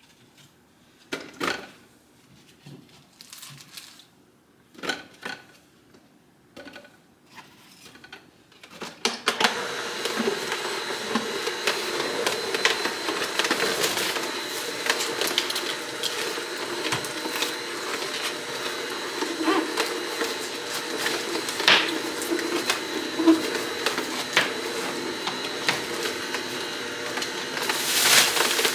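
A few scattered knocks and clicks, then about nine seconds in an electric juicer starts up and runs steadily, its motor whirring as produce for green juice is crushed through it.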